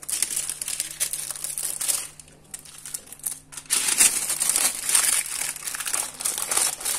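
A sheet of white paper crinkling and rustling as it is folded and wrapped around a rolled paratha. There is a short lull about two seconds in, then louder crinkling.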